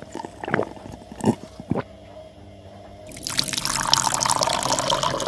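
Three gulps as beer is drunk from a glass, then, about three seconds in, beer poured from a glass bottle into a drinking glass, a steady stream of liquid.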